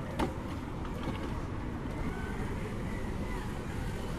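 Steady low rush of a shallow, rocky river, with a Traxxas TRX-4 RC crawler driving over the stones: one sharp knock of the truck on rock about a quarter second in, and a faint whine from its electric motor in the middle.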